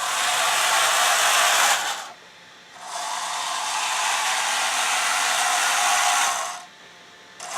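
Small electric 360 motors and dual-ratio gearboxes of an RC tank running with a steady whir. They stop briefly about two seconds in and again near the end.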